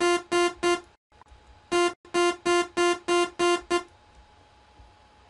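A synthesizer note at one fixed pitch played as short, bright stabs: three quick repeats, a pause of about a second, then seven more at roughly three a second, stopping about four seconds in.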